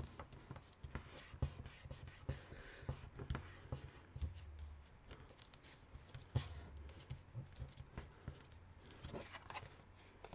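Hands pressing and sliding a glued piece of card on a desk: soft rubbing and paper rustling with many scattered light taps, and dull thumps about four and six seconds in.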